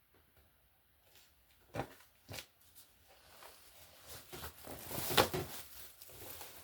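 Handling noise: two sharp knocks about two seconds in, then a growing run of rustling and small clicks, with a loud click near the end.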